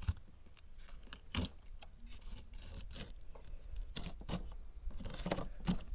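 Knife filleting a freshly caught barracuda: irregular sharp clicks and scrapes of blade on fish and board, over a steady low rumble.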